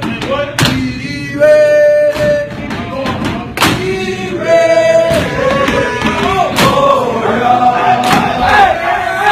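A crowd of voices cheering and chanting together in long held shouts, with a few sharp claps or thumps.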